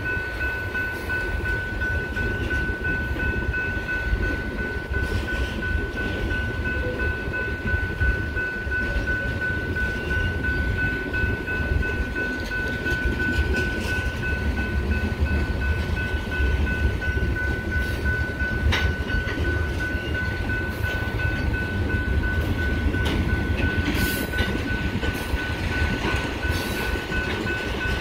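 Freight cars rolling slowly through a grade crossing: a steady low rumble of wheels on the rails with occasional sharp clicks, over the crossing's warning bell, a constant high ringing tone.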